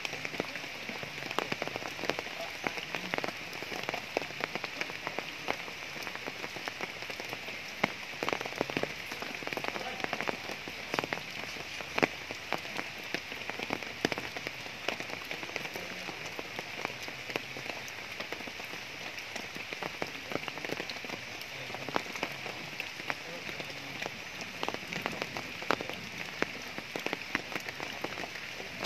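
Steady rain falling, with many sharp drops tapping at irregular moments.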